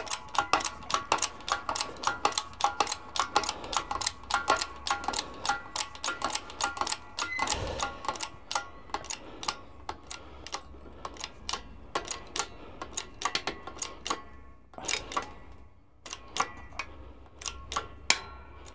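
Hydraulic shop press being pumped, giving rapid metallic clicks with a ringing note, about three or four a second, as the ram bears down on angle iron to compress the clutch release-finger springs. The clicking stops briefly near the end, then comes back in short runs.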